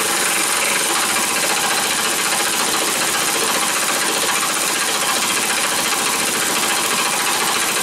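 Impact wrench hammering steadily on the axle nut of a lawn-tractor wheel, a fast, continuous rattling that holds without a break.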